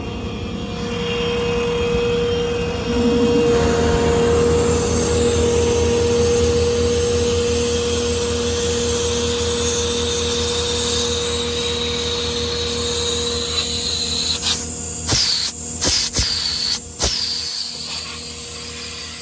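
Truck-mounted hydraulic air compressor running, a steady pulsing drone with a constant whine. Near the end the sound cuts out and comes back several times in quick succession.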